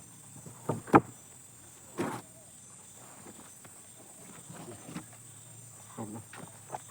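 A few scattered knocks and thuds, the loudest about a second in and another near two seconds, over a faint steady high-pitched hum; no chainsaw running.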